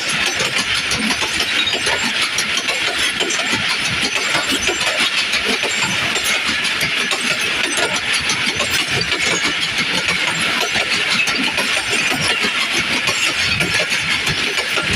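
Passenger train moving past at the station: a steady, even rumble with dense rattling from the wheels and coaches.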